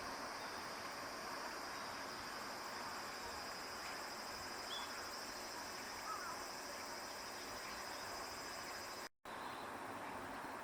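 Steady high-pitched insect chorus droning, with a couple of faint short bird chirps in the middle. The sound drops out completely for a moment about nine seconds in.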